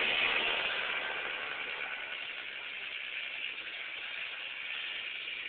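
Kid kart's small engine running as the kart drives away, fading over the first two seconds and then holding at a low, steady level.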